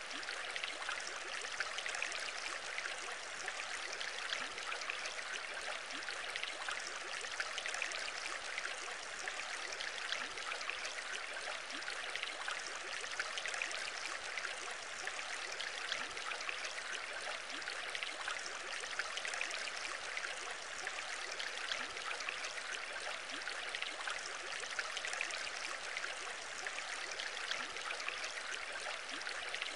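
Aquarium water bubbling and trickling steadily, with a dense patter of tiny pops from rising air bubbles.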